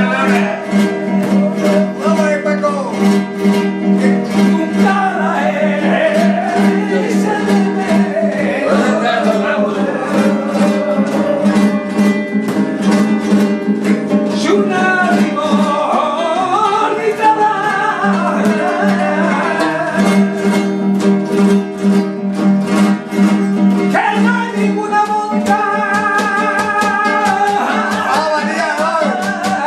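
Male flamenco singer singing a serrana in long, wavering, ornamented lines over a flamenco guitar accompaniment of strummed chords. The voice drops out for a few seconds after the middle while the guitar carries on, then comes back in near the end.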